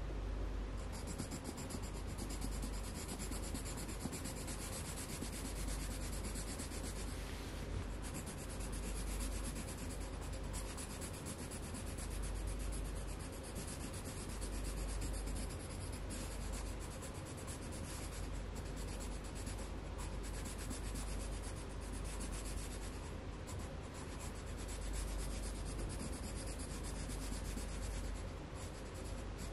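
Colored pencil rubbing across paper in rapid back-and-forth shading strokes, steady throughout.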